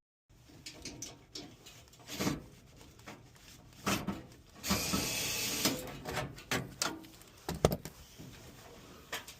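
Hands and tools working on a furnace blower assembly: scattered clicks, knocks and metal clatter, with a hiss lasting about a second near the middle and a sharp knock later.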